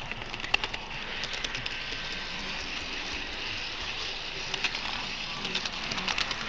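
HO-scale model train rolling along the layout track: a steady hiss with many small scattered clicks of wheels on the rails.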